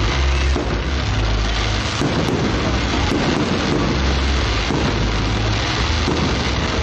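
Fireworks display: a continuous barrage of deep rumbling booms and crackle with no let-up, and crowd voices underneath.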